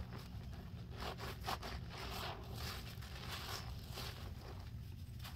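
A large yellow sponge soaked in thick dish soap and baking soda foam is squeezed and kneaded by gloved hands, making a run of wet, squishy squelches with crackling suds. The squelches come several a second and get sparser near the end.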